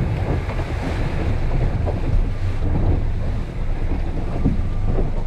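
Boat motor running under way, a steady low hum, with strong wind buffeting the microphone and water rushing past the hull.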